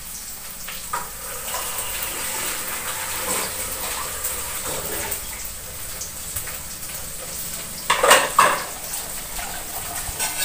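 Food sizzling in hot oil in a wok over a gas flame, a steady hiss, with a few loud clatters about eight seconds in.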